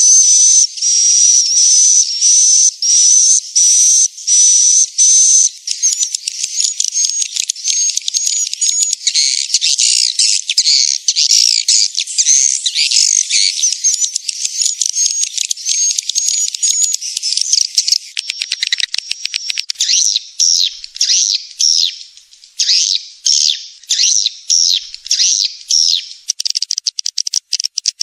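Swiftlet calls played as a lure to draw swiftlets in to call and roost: first a regular run of short high chirps about twice a second, turning about five seconds in into a dense, fast twittering chatter, and later into quick clipped chirps that slide down in pitch.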